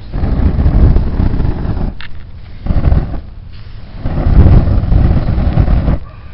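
Wind buffeting the microphone in three gusts, a low rumble that swells and drops off abruptly between them.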